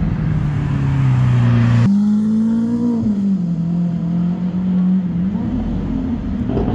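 Lamborghini Aventador Roadster's V12 engine pulling away at low revs. About two seconds in the sound cuts abruptly to the car accelerating off, its note rising, then settling to a steadier drone as it moves away.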